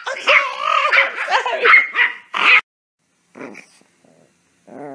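Small dog barking and yapping excitedly in a fast, unbroken run for about two and a half seconds, then a short yap. A wavering, drawn-out whine starts near the end.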